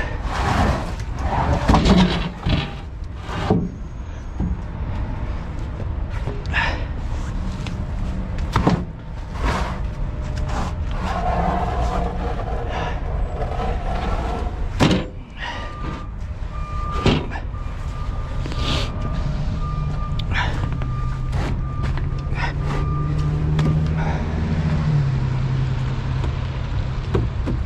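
Heavy truck engine running under a steady drone, with repeated knocks and rattles. Its pitch climbs for a few seconds and drops suddenly about 25 seconds in, as at a gear change.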